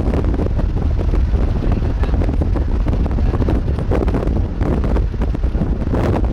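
Strong wind buffeting the microphone: a steady, loud low rumble with a gusty, fluttering texture.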